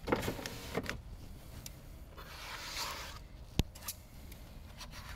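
Cleaning work on a truck's door glass: scraping and squeaking on the glass in the first second, then a hiss about a second long like a spray bottle wetting the glass, and one sharp click.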